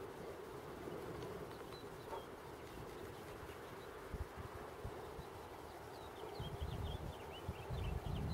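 Outdoor ambience: a low, fluctuating rumble of wind on the microphone under a steady low buzz, with a bird chirping rapidly in short high notes from about three-quarters of the way in.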